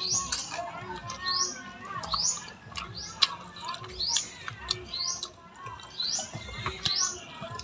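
A bird chirping over and over, a short rising call about every second, with a few sharp clicks and faint other bird notes underneath.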